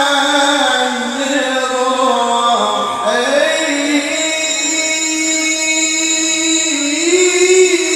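A man's voice reciting the Qur'an in the melodic tilawah style, amplified through a handheld microphone, drawn out in long ornamented held notes. The pitch slides down about three seconds in, then settles into one long held note that wavers near the end.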